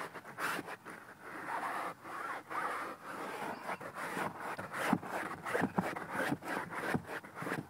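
Close rubbing and scraping on fabric in quick, irregular strokes, from truck seat upholstery being worked over.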